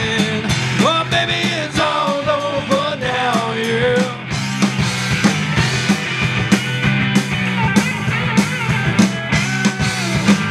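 Live rock band playing: electric guitars, electric bass and drum kit with regular cymbal strokes, and a melodic line bending in pitch over the first few seconds.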